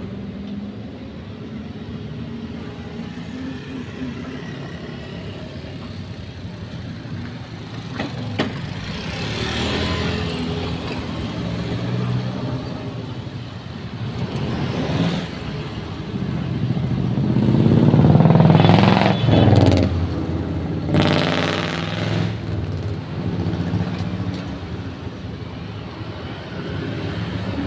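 Road traffic passing close by: motorcycles and cars going by one after another over a steady low hum, the loudest pass about two-thirds of the way through.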